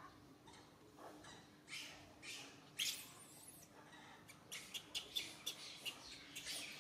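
Young long-tailed macaque giving short, high-pitched squeaks and cries, a few spaced ones and then a quick run of them in the last couple of seconds, begging to nurse.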